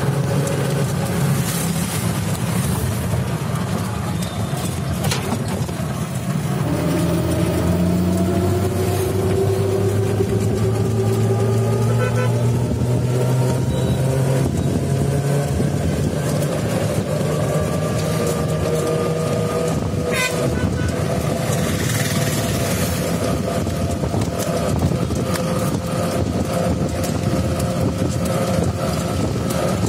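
Riding in an open-sided motorised auto-rickshaw: its motor whines and rises slowly in pitch as it picks up speed, over steady road and wind noise and occasional rattles of the body.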